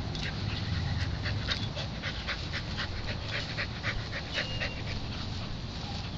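A dog panting quickly, about four to five short breaths a second, dying away about two-thirds of the way through.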